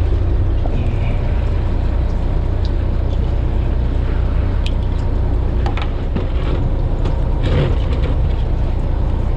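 Fishing boat's engine running with a steady low drone, with a few light clicks about halfway through.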